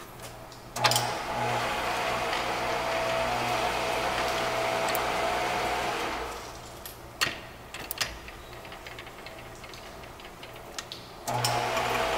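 Monarch 10EE precision toolroom lathe running, a steady mechanical whine and hum from its gearing as the feeds are worked. A sharp click brings the running sound up about a second in; around the middle it drops much quieter for several seconds with a couple of lever clicks, then comes back on abruptly near the end.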